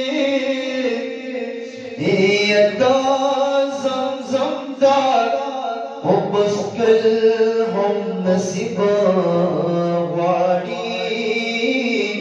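A man singing a Pashto naat solo and unaccompanied, in long held, wavering notes with short breaks between phrases.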